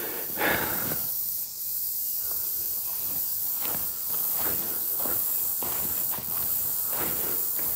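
Footsteps crunching on a dirt trail with dry leaves and stones, walking at an even pace of about two steps a second, over a steady high hiss.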